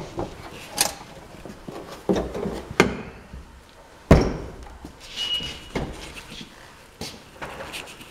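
Trunk lid of a 1940 Packard sedan being shut and latched: a series of metal clunks and thumps, the loudest about four seconds in, with a brief squeak soon after.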